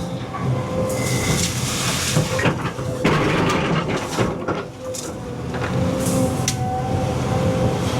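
Cat 320 EL hydraulic excavator running under load, its diesel and hydraulic pump giving a steady whine. Over it come bursts of scraping and a few sharp knocks as the bucket works material.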